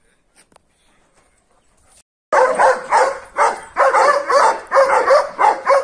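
Kangal shepherd dog barking hard in a rapid, unbroken run, about three barks a second, starting a little over two seconds in. It is worked up into a rage at another dog across the yard.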